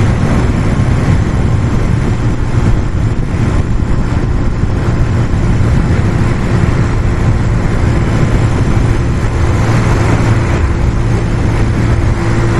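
Brixton Felsberg 125's single-cylinder engine running at a steady cruising speed of about 80 km/h, its pitch holding even, with heavy wind noise over the microphone.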